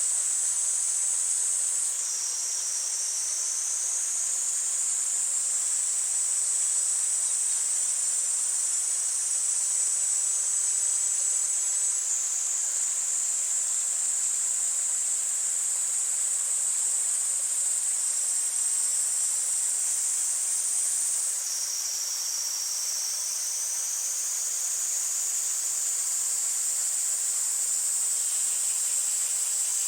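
Cicadas singing in a steady high chorus whose pitch drops slightly twice and slides back up, over the faint rush of a mountain stream.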